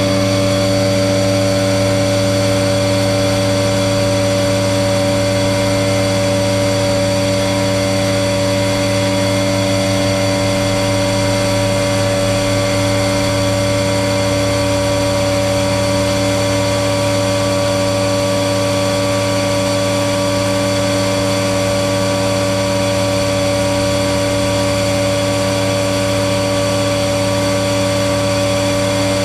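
Grain vacuum running steadily while conveying soybeans, its discharge spout pouring beans into a grain trailer: a loud, even hum made of several constant tones that does not change.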